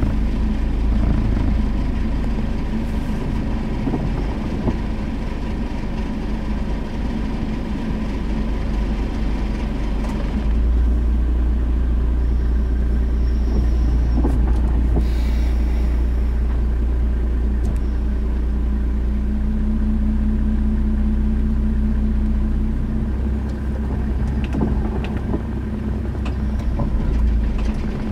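Car engine running steadily, heard from inside the cabin, its low hum growing heavier from about ten seconds in.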